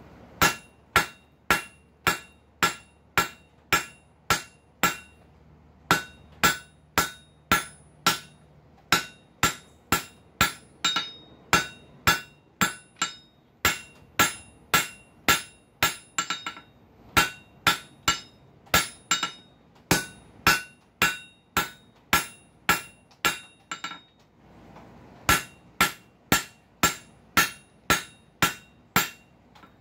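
Hand hammer striking a hot bar of flat steel on an anvil, about two blows a second, each with a short ringing note; the blows stop briefly twice. The bar is being drawn narrower.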